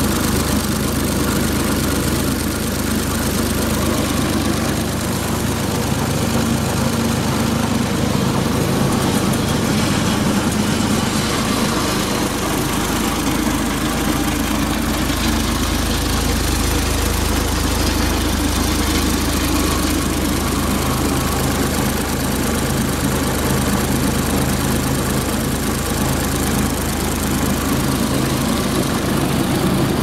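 Deutz three-cylinder diesel engine of a Dimas FS6000D concrete saw running steadily at a constant speed.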